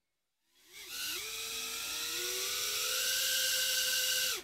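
Eachine Novice-I 75mm whoop drone's four brushless motors and propellers spinning up about half a second in to a steady high-pitched whine, the pitch creeping up slightly, then stopping abruptly. The drone does not lift off because its propeller setting is wrong.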